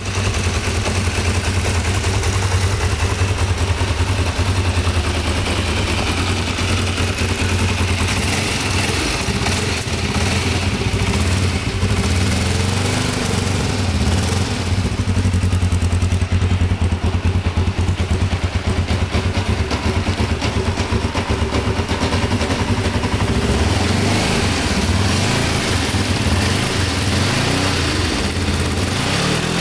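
Kawasaki KLE500's parallel-twin engine running at idle, a steady low exhaust note, with the revs rising and falling briefly a few times partway through.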